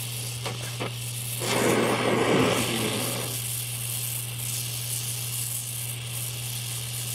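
Oxy-acetylene welding torch flame hissing steadily while it melts a puddle on thin steel during fusion welding. A louder, lower sound joins for about two seconds near the start.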